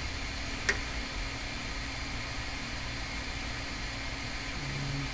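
Steady electrical hum and fan-like room noise, with one sharp click under a second in and a short low hum near the end.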